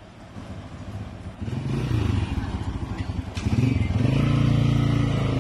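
Heavy flatbed self-loader truck's diesel engine running under load as the truck maneuvers. It grows louder about a second and a half in, then rises again near four seconds and holds steady.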